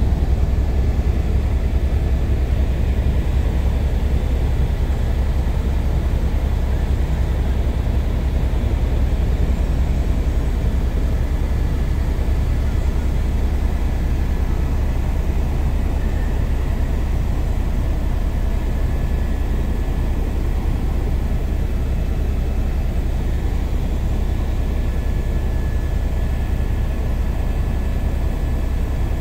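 Helicopter noise heard inside the cabin in flight: a steady, loud drone of rotor and engine, heaviest in the low end, with a faint high whine.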